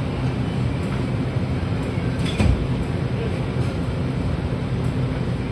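Vehicle running steadily, a low rumble with a brief knock about two and a half seconds in.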